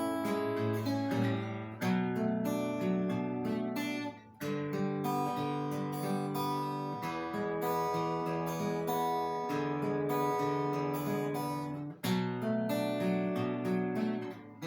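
Viola caipira played solo: a plucked melody over strummed chords, with short breaks between phrases about four seconds in and near the end.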